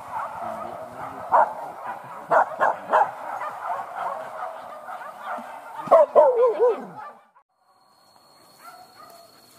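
A pack of hunting dogs barking and baying in chase, many barks overlapping, with a few sharp loud ones. About six seconds in, a yelping cry wavers and slides down in pitch, then the barking cuts off suddenly.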